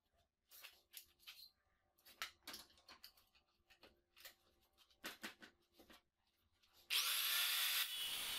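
Scattered knocks and clicks of a square steel tube being set on a metal bench and clamped in a homemade lever clamp. About seven seconds in, an angle grinder switches on, spins up with a brief rising whine and runs steadily.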